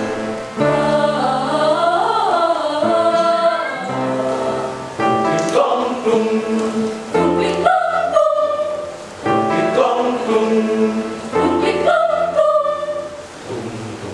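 Mixed youth choir of boys' and girls' voices singing in harmony, sustained chords in short phrases with brief breaks between them.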